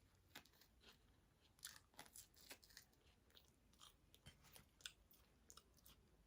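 Faint close-up chewing and biting of food, with scattered crunchy mouth clicks.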